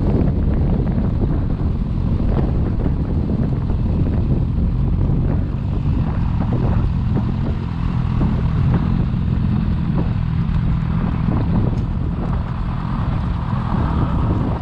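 Sport motorcycle engine running at low speed, a steady low engine note as the bike rolls slowly along.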